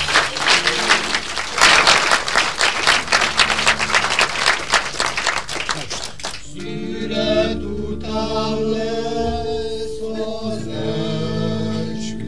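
Audience applause, dense clapping for about six seconds. It then gives way to slow music of long held chords.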